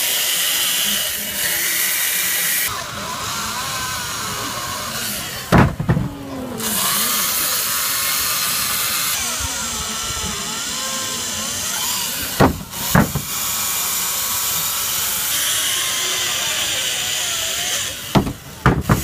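Small corded handheld power tool grinding into a block of ice, a steady high whine whose pitch wavers as the bit bites and eases off. Loud thumps break in a few times: around 6 seconds, around 12–13 seconds and just before the end.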